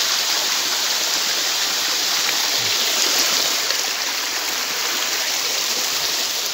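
Water of a small waterfall flowing over rock, a steady hiss heard close to the falling water.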